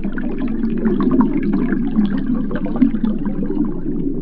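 Underwater ambience: a steady low rush of water with small bubbly crackles, holding even throughout.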